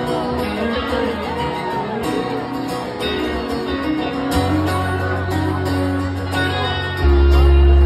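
Live country music from acoustic and electric guitars through a club PA, an instrumental passage between sung lines, with crowd voices faintly underneath. A low bass note comes in about four seconds in and swells louder near the end.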